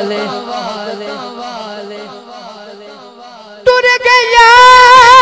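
Male singer performing a Punjabi devotional kalam through a microphone. The musical sound fades gradually, then about three and a half seconds in a loud, long, high held note cuts in suddenly, wavering only slightly.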